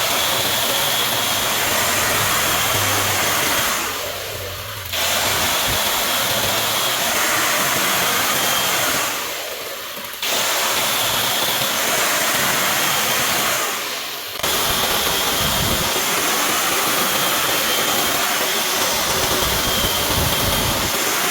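Wood lathe at work: a steady rushing, hissing noise of a turning tool cutting the spinning wood in long passes, easing off briefly three times as the tool is lifted and put back.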